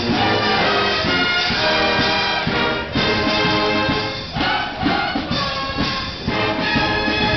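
Brass band playing live: trumpets and trombones holding and changing notes over a steady low beat, with brief breaks between phrases.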